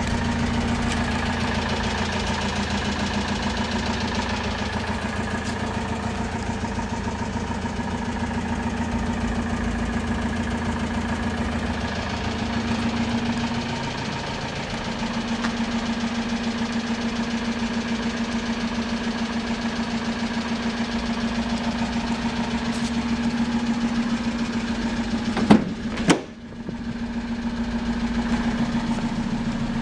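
Citroën Jumper's 2.2 HDi four-cylinder turbodiesel idling steadily. Near the end a single sharp clack stands out above it, as the sliding side door is opened.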